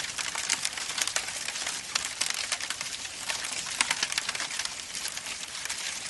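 Steady, dense crackling made of many irregular pops and clicks over a hiss.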